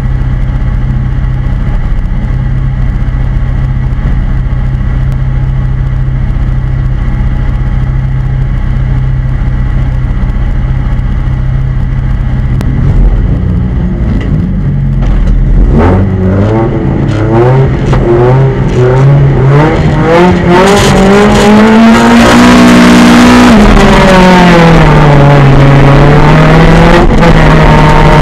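Autocross race car engine, heard from inside the stripped cabin. It is held at steady revs for about thirteen seconds, then from about fifteen seconds in the revs climb as the car launches and accelerates hard, the pitch rising and dropping in steps through the gear changes.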